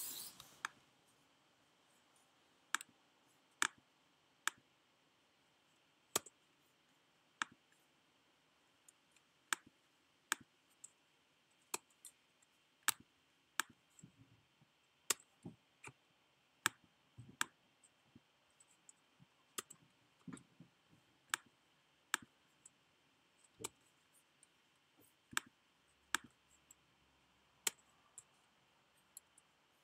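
MacBook trackpad being clicked over and over: sharp single clicks, roughly one a second at an uneven pace.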